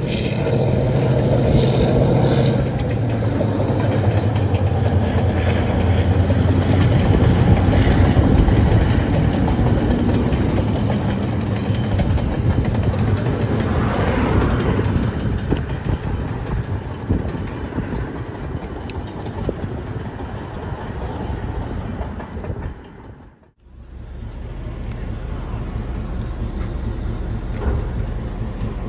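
Diesel locomotive engine running steadily with a low drone, loudest about a third of the way in. It breaks off abruptly near the end, then a quieter steady engine sound follows.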